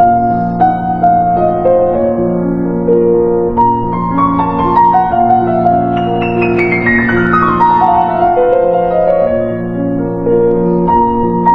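Instrumental background music led by piano: sustained notes over a repeating bass figure, with a run of notes stepping downward from about six seconds in.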